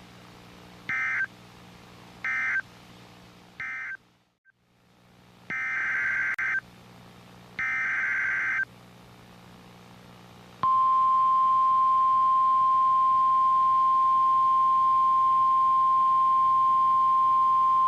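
Emergency Alert System SAME data bursts from NOAA Weather Radio: three short end-of-message bursts, then two longer header bursts about a second each for the next alert. Then, a little past halfway, the steady weather radio warning alarm tone starts and holds to the end, signalling that a warning follows.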